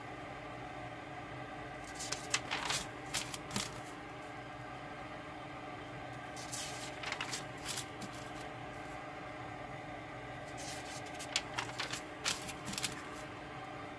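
Paper pages of a spiral-bound notebook being turned by hand: three brief crackling rustles a few seconds apart. A steady low hum runs underneath.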